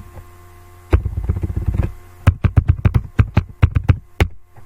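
A second of dense crackling rustle about a second in, then a run of sharp clicks and taps, about five a second, over a steady low electrical hum.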